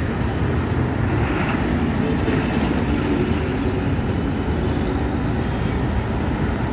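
Ashok Leyland double-decker bus driving past close with its engine running, over steady road traffic noise. The sound cuts off abruptly at the end.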